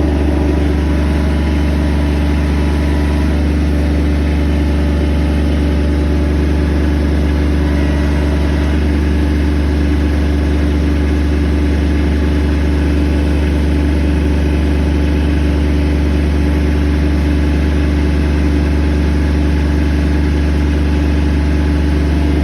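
Engine of a heavy machine running steadily at a constant speed: a deep, even hum with no change in pitch.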